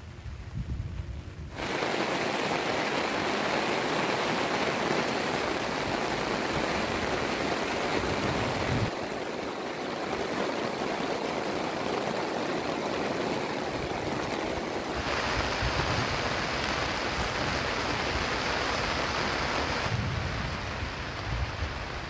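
Heavy rain pouring down in a steady hiss that starts suddenly about two seconds in, after a low rumble of wind on the microphone. The hiss changes character a few times.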